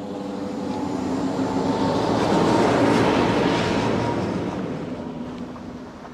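A motor vehicle driving past on a narrow mountain road, growing louder until it is closest about three seconds in, then fading away.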